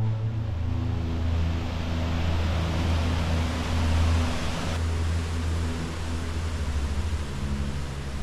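Steady rushing roar of Raymondskill Falls, a large waterfall, with low sustained tones running underneath. About halfway through the roar turns duller, losing much of its hiss.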